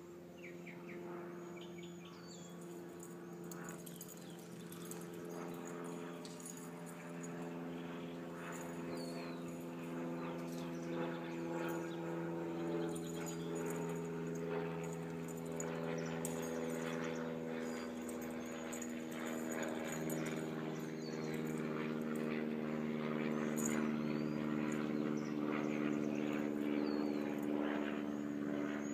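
Steady drone of an engine, growing slowly louder, with a few bird chirps over it.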